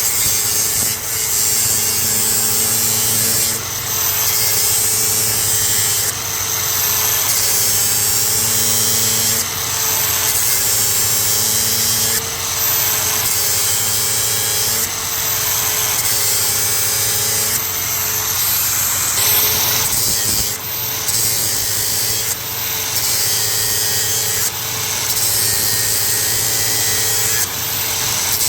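Cordless angle grinder with a 36-grit ceramic sanding disc (Walter Xtracut XX) grinding down steel welds: a loud, steady grinding hiss over the motor's whine, whose pitch wavers under load. It breaks off briefly every few seconds as the disc is lifted and set back on the work.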